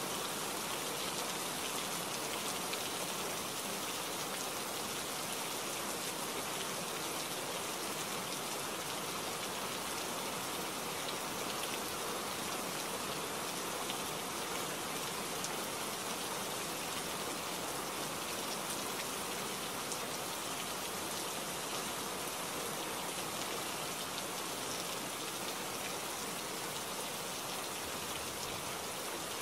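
Steady rainfall, an even hiss of many drops that does not change in strength.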